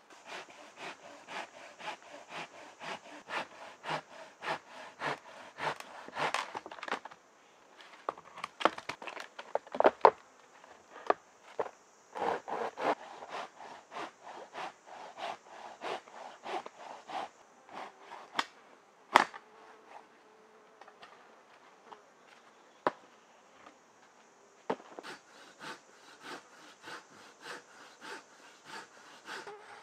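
Hand saw cutting wood in rhythmic strokes, about two a second, for the first several seconds and again near the end. In between come scattered knocks and clicks of wood. A steady high insect buzz runs throughout.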